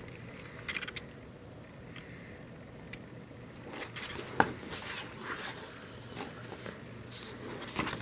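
Faint paper rustling and light taps from hands handling the pages of an album's printed lyric booklet, with one sharper click about four and a half seconds in.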